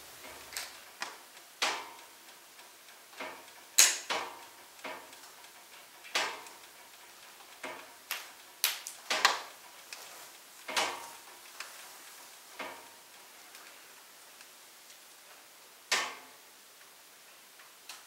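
Firewood burning in a fireplace, crackling with sharp, irregular pops about every half second to second, the loudest near four and nine seconds in, over a faint steady hiss.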